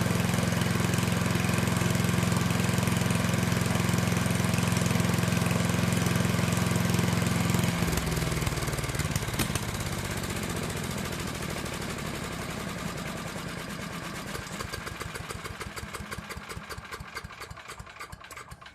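Old Craftsman chipper shredder's small gasoline engine running steadily, then cut off about eight seconds in. The machine winds down with a ticking that slows and fades as it coasts to a stop.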